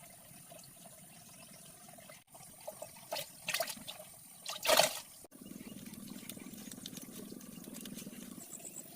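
Water splashing, with a run of sharp splashes from about three to five seconds in, the loudest near five seconds. A steady low hum follows.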